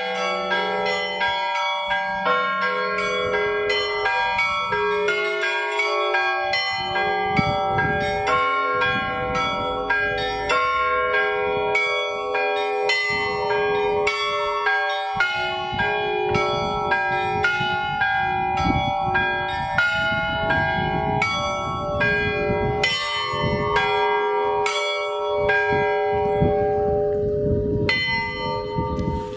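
Church bells ringing a festive Easter peal: several bells of different pitches struck in a quick, busy rhythm, the small high bells struck rapidly over the longer ring of deeper ones.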